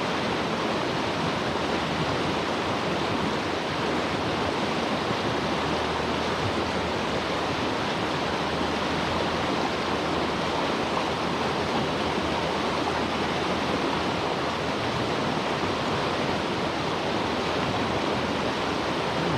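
Steady, even outdoor rushing noise that does not rise and fall, like running water or surf.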